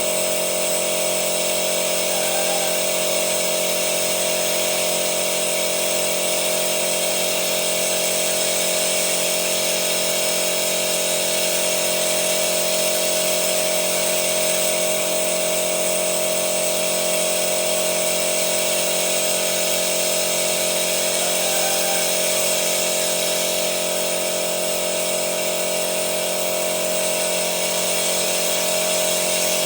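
A motor running at a steady speed with an unchanging whine and hiss.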